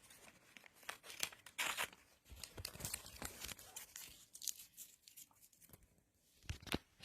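Faint, irregular crinkling and rustling of a crinkly material being handled, in short scattered bursts with brief pauses between them.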